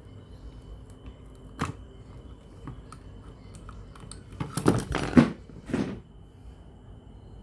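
Handling noises at a radio repair bench: a sharp knock about a second and a half in, then a louder short clatter of scraping and knocking around five seconds in, over a faint steady high-pitched whine.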